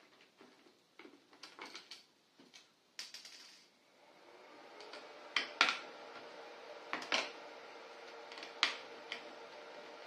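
Small clicks and taps of screws being undone and small parts handled on an e-bike circuit board. From about four seconds in, a steady hum with a fixed pitch sets in under a few sharper clicks.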